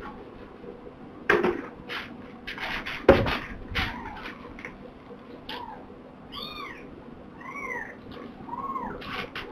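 Rustling noises with one sharp knock about three seconds in, then several short, high-pitched kitten mews, each rising and falling in pitch, over the last few seconds.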